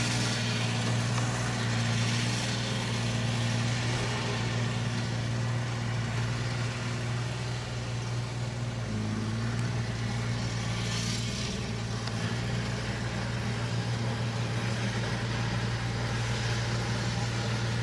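Engine of a large compost-spreading machine running steadily with a constant low drone; a brief rushing swell rises and fades about eleven seconds in.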